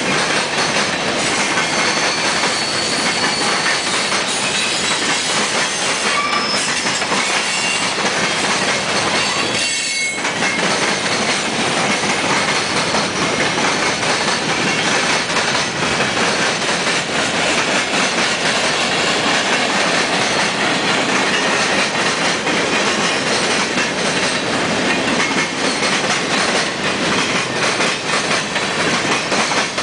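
Union Pacific manifest freight train's mixed cars rolling steadily past: a continuous clatter and rumble of steel wheels on rail. A few brief, faint wheel squeals come through now and then.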